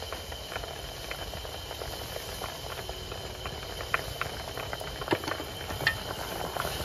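Water with chunks of young pumpkin boiling hard in a blackened metal pan over a wood fire: steady bubbling and hiss, full of small pops, with a few sharper pops about four, five and six seconds in.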